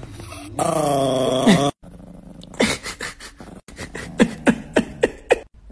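A voice gives a loud, drawn-out wavering wail, then a run of short, sharp yelps that drop in pitch, several a second.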